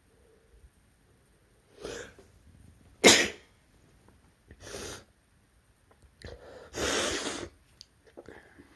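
A person with a cold sneezing several times in a row, with breathy intakes between. The sharpest and loudest sneeze comes about three seconds in, and a longer, noisier one follows near the end.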